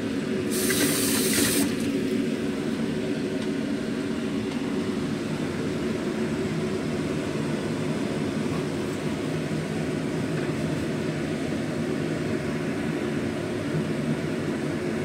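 Steady rushing hum from a pot of chicken soup cooking under a glass lid on the stove. A brief hiss comes about half a second in and lasts about a second.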